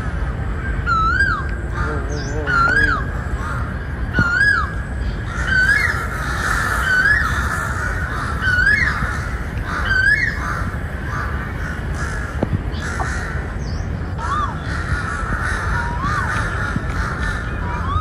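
Several crows cawing, each call rising and falling in pitch. Single caws come about every second and a half at first, then many calls overlap into a continuous chorus from about five seconds in until near the end.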